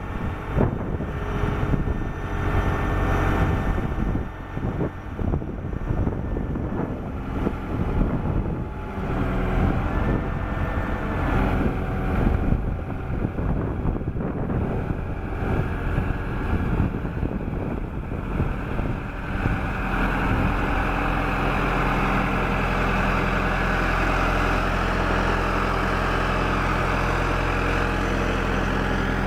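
1999 SkyTrak 10054 telehandler's diesel engine running, uneven with scattered knocks and clatter at first. About twenty seconds in it settles into a steady, higher, busier note.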